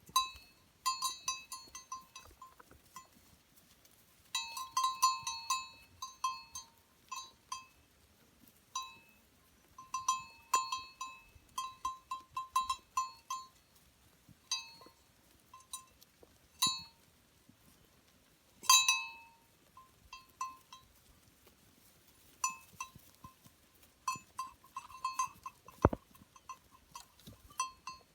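Small bells on a flock of sheep clinking irregularly as the animals move, in bursts of several quick rings a second with short pauses between.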